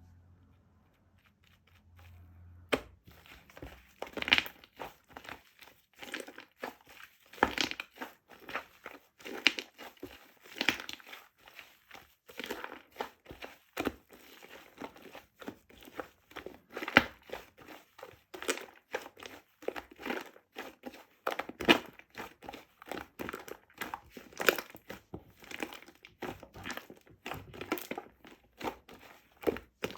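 Dense, irregular crinkling and crackling that starts about three seconds in and keeps going, with a few louder snaps among it.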